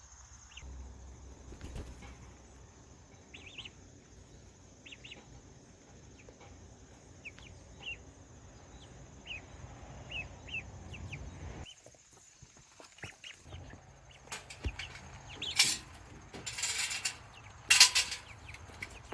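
Young chicks peeping faintly in short, scattered high chirps. Near the end come several loud rustling bursts, like wings flapping.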